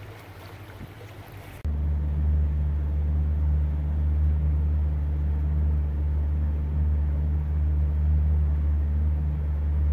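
Shanty boat's motor running steadily under way, heard from inside the cabin as a loud, even low drone; it starts abruptly under two seconds in, after a quieter stretch of faint outdoor ambience.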